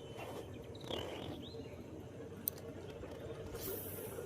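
Outdoor ambience with a bird's thin, high whistled notes early on, some rustling, and a single sharp click a little past halfway.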